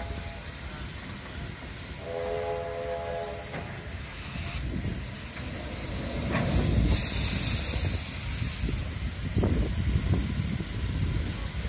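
Steam locomotive standing in steam: a short steady steam-whistle blast about two seconds in, then a loud hiss of released steam around the middle, over a steady low rumble.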